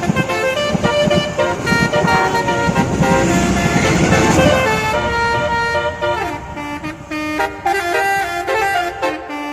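Multi-tone 'telolet' horn playing a stepping melody of held notes, over a low rhythmic pulsing in the first half, with a hiss swelling up and dying away around the middle.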